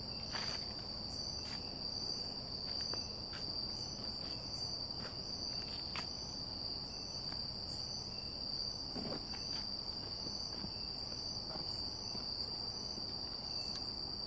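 Night insects calling in forest: one steady, high-pitched trill held without a break, with a second, higher call pulsing about twice a second over it, and a few faint clicks.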